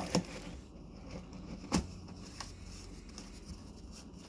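A few light clicks and knocks over a faint low hum, the sharpest about two seconds in.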